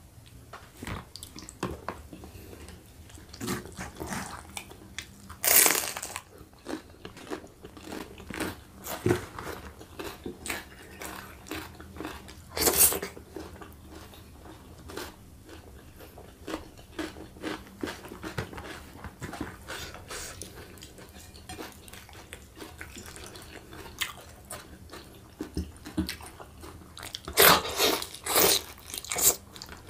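Close-miked mouth sounds of a person eating rice and rendang chicken by hand: steady chewing and smacking, with a few louder bites and crunches. Near the end there is a cluster of loud bites as he tears into a piece of rendang chicken.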